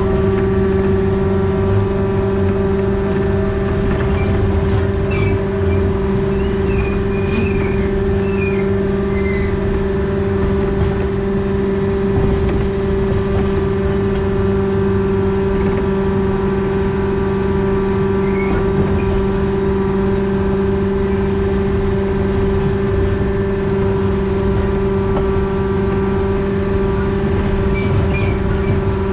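Diesel engine in the tender of a narrow-gauge locomotive, converted from steam to diesel-hydraulic drive, running steadily with a constant drone while the train is under way. A low rumble sits under it, and a few faint high chirps come and go.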